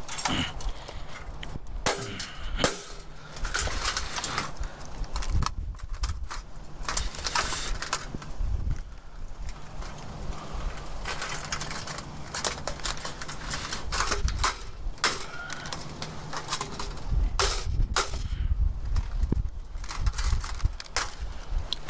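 Scrap metal and debris rattling and clanking as someone rummages through a dumpster, with many irregular sharp knocks and clatters.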